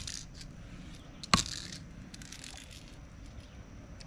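Knocks of an ERA 2K clear-coat aerosol can struck bottom-down on a wooden 4x4 to release and activate its hardener: a sharp knock at the start and a louder one a little over a second in, followed by a brief hiss.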